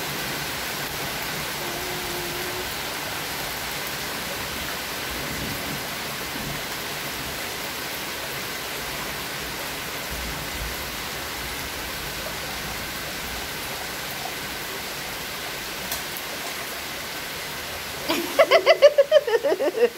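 Steady rain falling, an even hiss. A child's voice cuts in near the end.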